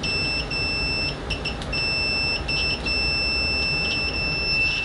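Kyoritsu 1009 digital multimeter's continuity beeper sounding a steady high-pitched tone with the test probes shorted together. The tone cuts out briefly several times.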